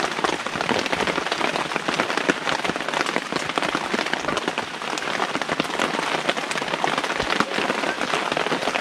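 Steady rain falling on a surface, a dense patter of many small drops.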